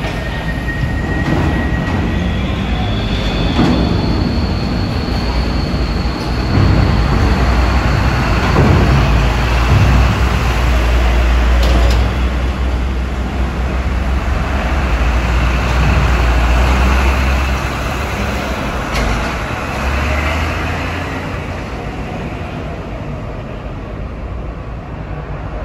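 Heavy diesel tanker truck driving up a ferry's steel loading ramp and passing close by. Its engine rumble builds to loud through the middle, then eases as it rolls onto the car deck, with a clank about halfway through.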